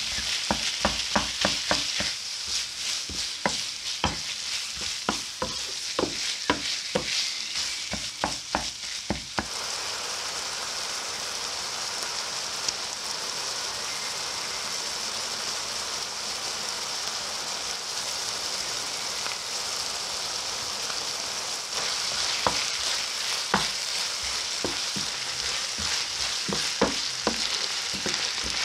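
Minced beef and onions sizzling in a frying pan, with a wooden spoon knocking and scraping against the pan as the meat is broken up through the first nine seconds or so. Then a steady sizzle, with a few more spoon knocks near the end.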